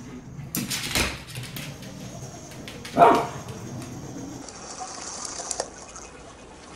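Husky giving one short, loud bark about three seconds in, after a burst of clicking and scuffling about a second in.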